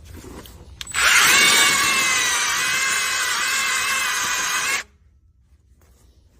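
A small power tool runs with a steady high whine for about four seconds, starting about a second in and cutting off abruptly.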